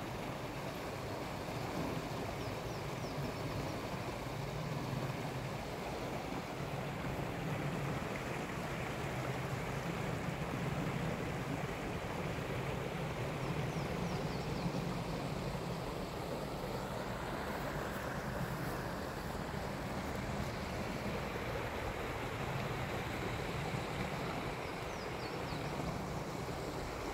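A rocky river running over boulders and small rapids: a steady rush of water.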